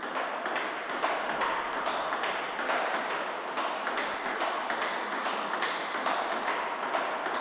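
Table tennis rally in a topspin exchange: the ball clicks in quick, even succession, alternately off the rubber-faced bats and the Butterfly Octet table, with some echo from the hall.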